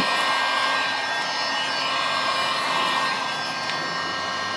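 Electric heat gun running steadily: a fan whine over rushing air, blowing hot air onto vinyl wrap to soften it for peeling. It gets slightly quieter about three seconds in.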